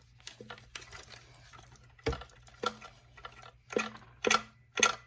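Something loose knocking inside the plastic fuel tank of a Skilsaw 1632C chainsaw as the saw is tipped and shaken, about five sharp clinks in the second half, the sign of a loose object or debris in the tank.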